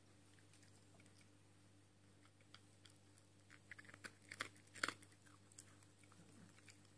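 Small white dog crunching dry kibble: scattered crunches that come thick for about a second and a half past the middle, the loudest near the end of that run.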